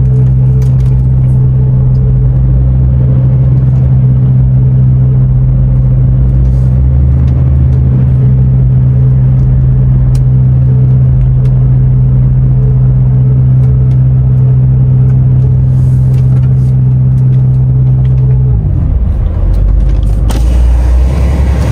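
DAF XF510 truck's six-cylinder PACCAR MX-13 diesel engine running steadily at an even pitch. About 18 seconds in, the engine note falls away, leaving a low rumble, and a single click follows.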